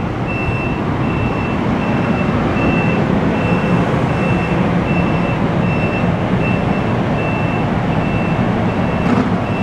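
NJ Transit Multilevel coach train rolling along the platform: a steady rumble of wheels on rail that grows slightly louder. A high electronic beep repeats evenly about every half second over it.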